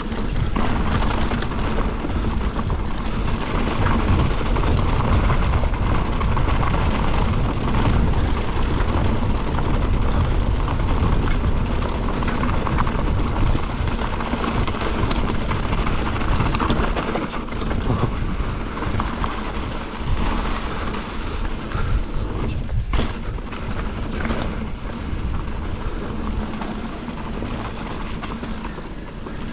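A mountain bike descending a dirt trail: tyres rumbling over the ground, the bike rattling over bumps, and wind rushing over the microphone, with a few sharper knocks along the way.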